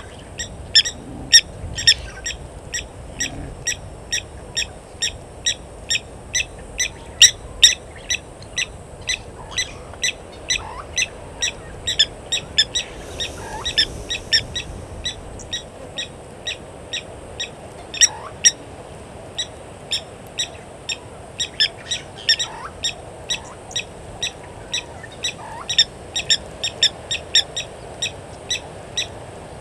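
Blacksmith lapwing giving its sharp, metallic 'tink' call, the hammer-on-anvil note the bird is named for, repeated steadily at about two a second with one short pause about two-thirds of the way through.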